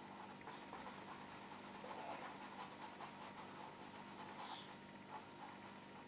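Faint scratchy sound of a paintbrush dabbing and scrubbing oil paint onto a canvas, with a run of quick light taps about two to four seconds in, over a low steady hum.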